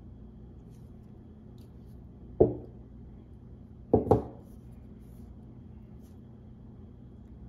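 Three knocks as a metal supercapacitor cell and a multimeter probe are handled on a table: one about two and a half seconds in, then a quick pair about four seconds in. A steady low hum runs underneath.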